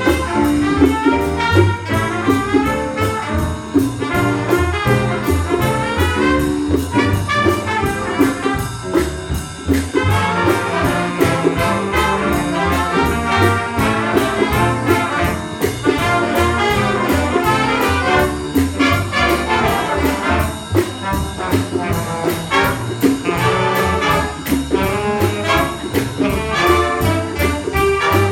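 Student jazz big band playing, the trumpets and trombones carrying the lines over saxophones and a steady drum-kit beat.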